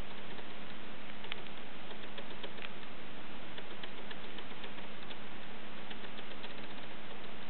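Faint, irregular clicks of fingers tapping and handling an iPhone 4 touchscreen, over a steady hiss and a low hum.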